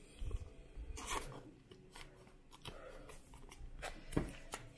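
Cardboard trading cards and a plastic wrapper being handled: scattered short rustles, scrapes and light taps as cards are shuffled and set down on the table.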